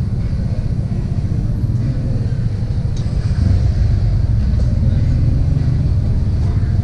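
Motorcycle engine running with a steady low rumble, growing a little louder about halfway through.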